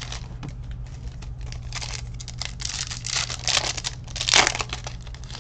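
Foil wrapper of a baseball card pack being torn open and crinkled by hand, in a run of crackling rustles with the loudest crinkle near the end.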